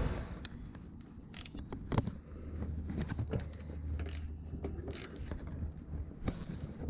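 Scattered metallic clicks and knocks of hand tools and parts being handled, over a steady low hum that starts about two seconds in.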